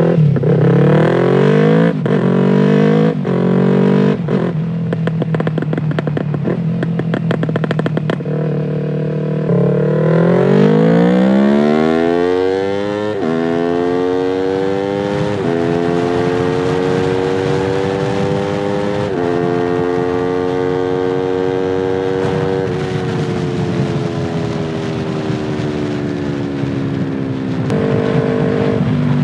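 Yamaha R3's 321 cc parallel-twin engine: a few quick revs, then pulling away and accelerating through several upshifts, with the pitch stepping at each shift. Near the end it eases off and slows, the pitch falling.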